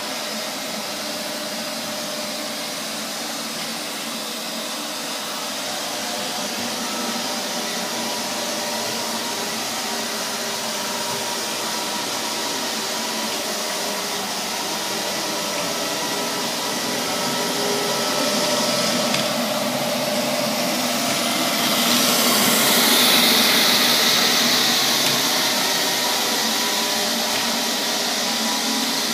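Neato XV-21 robot vacuum cleaner running: a steady whirring noise with faint motor whine, growing louder about two-thirds of the way through, then easing off a little.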